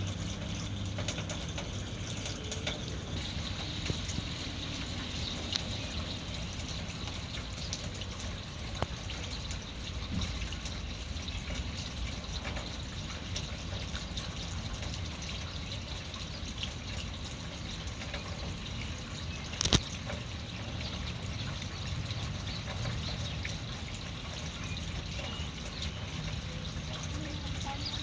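Steady trickling and dripping of rainwater, a continuous wash dotted with small drips, with one sharp tap about two-thirds of the way in.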